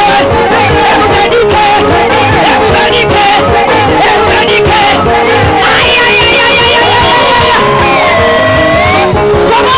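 Loud live worship music with a steady beat, with singing and shouts from the congregation; about halfway through, the voices give way to long held, sliding notes.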